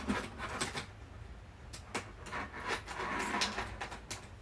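Small clicks, knocks and a brief rustle from handling a plastic medication box and medicine packets.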